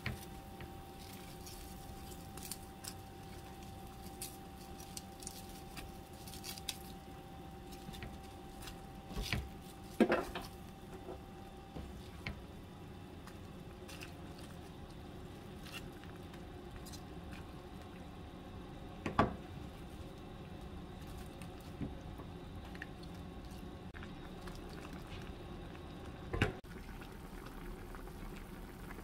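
Beef, cabbage and carrot soup bubbling in a pot at a boil, with a few sharp knocks of a spatula and cookware, three of them loud and spaced several seconds apart.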